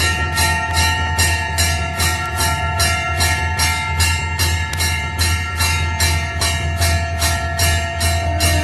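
Temple bell (ghanta) rung continuously during aarti, struck evenly about three times a second. Its ringing tones overlap from stroke to stroke over a steady low hum.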